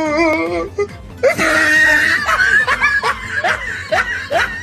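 A woman laughing in short rising bursts, with music playing underneath.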